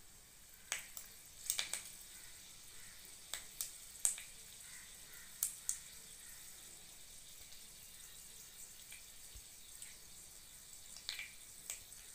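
Mustard seeds popping in hot oil in a kadai: scattered sharp pops, most in the first six seconds, then a lull before a few more near the end. This is the seeds spluttering, the sign that the tempering oil is hot enough and the seeds are done.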